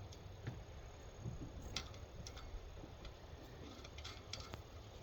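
Faint, irregular small clicks and taps over a quiet low room hum.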